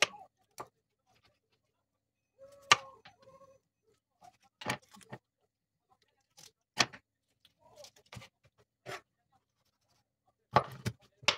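Kitchen knife chopping through raw chicken onto a wooden cutting board: irregular sharp knocks a second or two apart, with two loud ones close together near the end.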